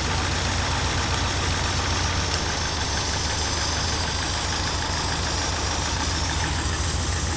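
Nissan SR20DET turbocharged four-cylinder engine idling steadily, with one ignition coil unplugged for a cylinder-by-cylinder misfire check on an engine with a rough idle.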